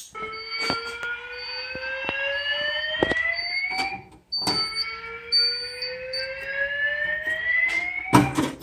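Fire alarm evacuation tone from a wall speaker: a slow rising 'whoop' that sweeps upward for about four seconds, breaks off about four seconds in, and starts again. A few sharp clicks and a knock near the end are heard alongside it.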